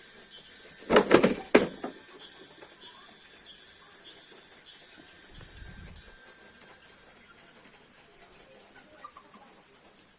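Insects chirring steadily at a high pitch, with a few sharp clicks about a second in; the chirring fades near the end.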